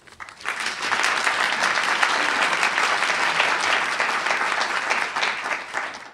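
Audience applauding. The clapping builds up within the first second, holds steady, and cuts off abruptly at the end.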